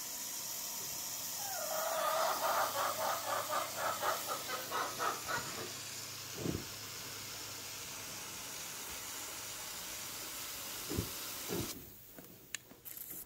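Aerosol can of expanding spray foam hissing steadily as foam is forced through its tube into a lawn mower tire, cutting off shortly before the end. About two seconds in, a hen clucks in a quick run of short calls for a few seconds, and a few soft thumps come later.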